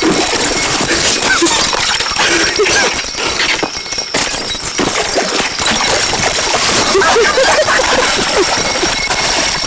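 Night chorus of frogs and insects: many short chirping calls over steady high-pitched insect trills.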